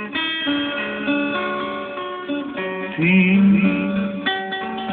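Instrumental song accompaniment led by plucked and strummed acoustic guitar, with a louder wavering held note about three seconds in.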